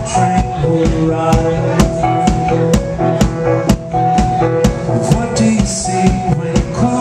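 Live rock band playing an instrumental stretch: a drum kit keeps a steady beat of about two hits a second under electric guitar, bass guitar and a Nord electric keyboard holding sustained notes.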